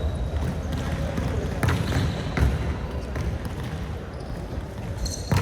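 Scattered sharp thuds of a ball striking the floor and hands during play, over the steady low rumble of a busy hall.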